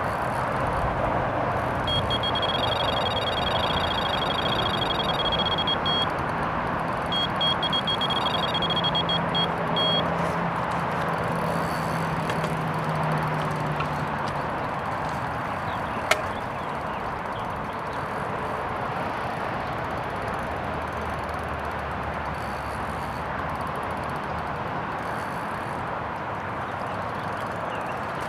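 Electronic carp-style bite alarm sounding a continuous string of rapid high beeps, in two stretches of a few seconds, as a fish takes line on a second rod during a twin run. Steady wind noise runs underneath, with a single sharp click about sixteen seconds in.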